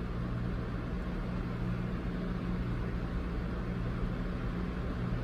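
Steady background room noise: a low electrical-sounding hum with an even hiss over it, unchanging throughout.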